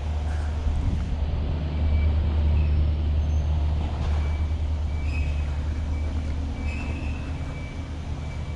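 Steady low rumble of a large engine running, like a nearby truck or heavy equipment.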